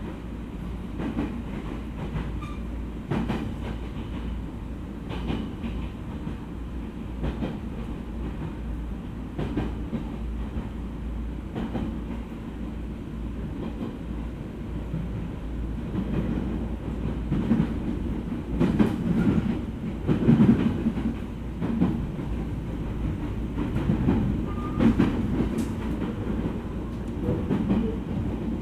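Running noise inside a JR East E231 series electric commuter train at speed: a steady low rumble, with wheels clicking over rail joints every couple of seconds. The rumble grows louder for several seconds past the middle, then eases again.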